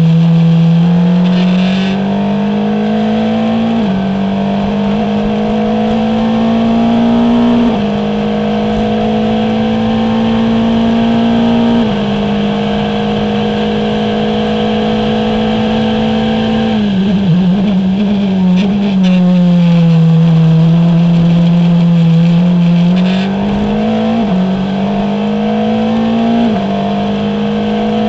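Formula Renault 2.0 single-seater's 2.0-litre four-cylinder engine heard onboard at full throttle, climbing through three upshifts, each a sudden drop in pitch. About two-thirds of the way through, the note falls away under braking with a ragged stretch of downshifts and stays low through a corner. Then it climbs again through two more upshifts.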